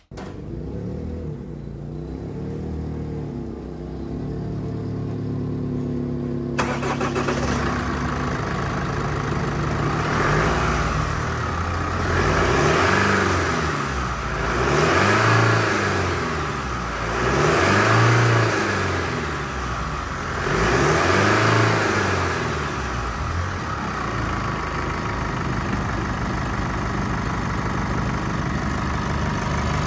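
2016 Holden Colorado's four-cylinder turbo-diesel engine running on test, revved about five times in rising and falling swells, then settling to a steady idle. The first six seconds or so sound muffled.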